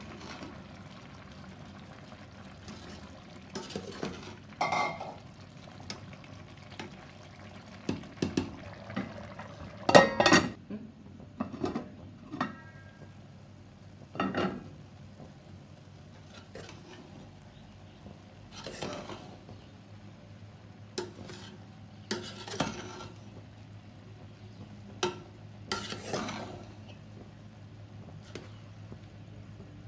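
A spoon scraping and knocking against a steel cooking pot while stirring and turning rice, in scattered separate knocks and scrapes, the loudest about ten seconds in.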